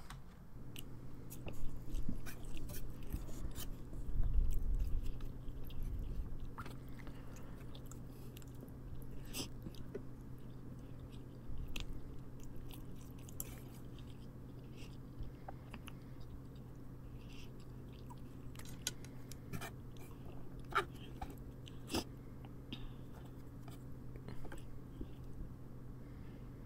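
A person chewing a mouthful of spaghetti close to the microphone, with irregular small mouth clicks, over a steady low hum.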